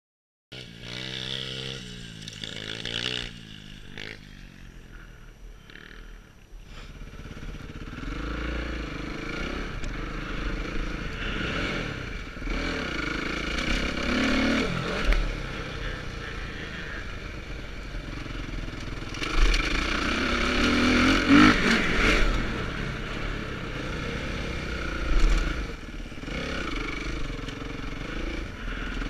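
Motocross bike engine revving up and down as it is ridden around a dirt track, heard onboard. The revs rise and fall with the throttle and the loudest surges come about two-thirds of the way through.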